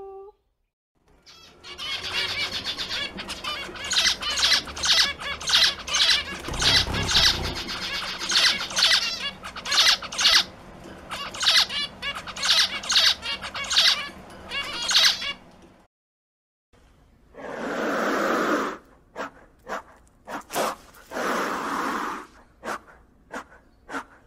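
Zebra finches calling: a rapid run of short chirps from many birds for about fifteen seconds. After a brief pause, a Gila monster hisses in several long, breathy exhalations.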